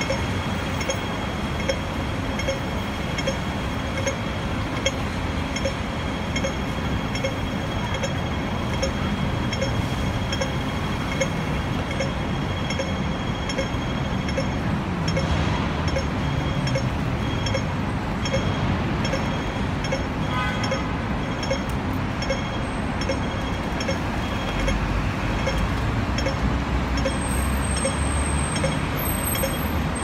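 Hong Kong pedestrian crossing signal ticking steadily at about two ticks a second, the slow 'wait' rhythm given while the red man is lit, over street traffic noise. A low vehicle rumble grows near the end.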